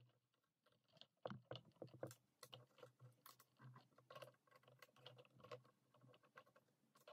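Faint, irregular small clicks and taps of plastic parts being handled: the propellers being unscrewed from a DJI Mavic Mini drone and set down on a wooden table, over a steady low hum.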